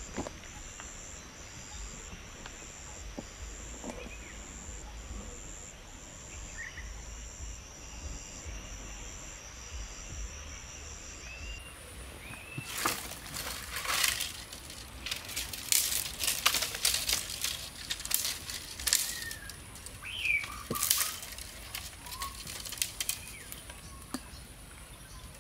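Woodland pond ambience: insects trilling in a steady pulsing rhythm with short bird chirps. From about halfway, a run of loud rustles, crackles and knocks as a person steps along a fallen log over the water and brushes through dry branches, birds still chirping.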